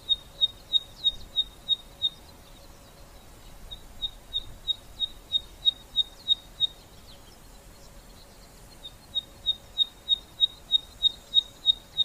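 Neddicky (piping cisticola) giving its 'bicycle pump' call: a series of high, evenly spaced single notes, about three a second. The notes come in three runs of around ten each, separated by short pauses.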